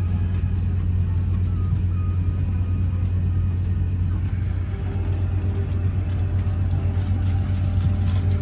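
Steady low rumble inside an Airbus A350-941 cabin: engine and airflow noise, with a few faint clicks.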